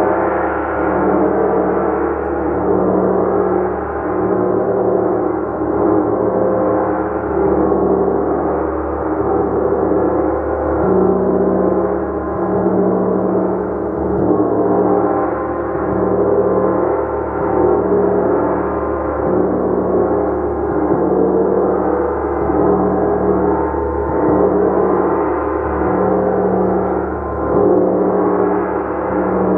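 Gong played continuously in a long, steady wash of many overlapping tones, the volume swelling and ebbing about every two seconds with no single strike standing out.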